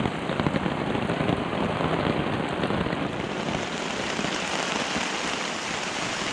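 Steady heavy rain, a dense patter of many drops hitting a surface.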